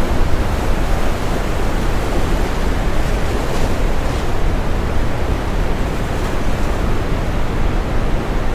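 Steady deep brown noise with ocean waves washing in the mix, a soft wash of surf brightening briefly around the middle.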